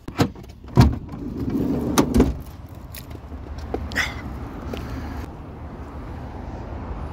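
Van door clunking open: a few sharp knocks of the latch and door in the first two seconds, the loudest about a second in, then a steady low rumble of outdoor traffic.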